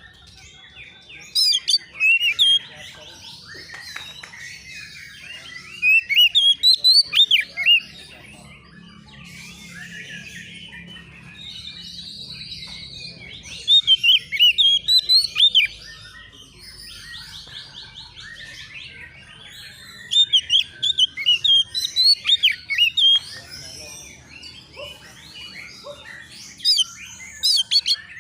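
Oriental magpie-robin (kacer) singing a rival-challenging song: loud bursts of sharp whistled notes come several times, over fainter continuous song with fast trills.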